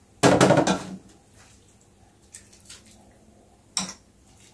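Soup being ladled from an enamel pot: faint small ticks and liquid sounds, with one sharp clink of the metal ladle near the end. A brief spoken remark comes at the start.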